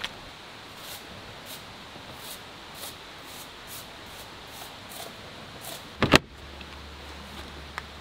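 Soft, evenly spaced crunching steps, then a car door shuts with a heavy double thud about six seconds in. A steady low hum starts right after the door shuts.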